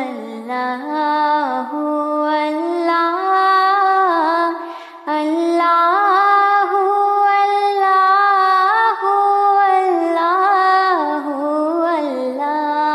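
A solo high voice sings a Bangla Islamic gojol with no instruments. It holds long, gliding notes, with a short break about five seconds in.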